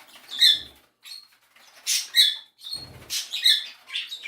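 Cockatiels chirping, a string of short high calls about two a second.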